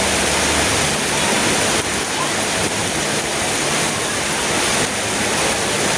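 Heavy rain pouring down steadily in a storm, a loud even hiss.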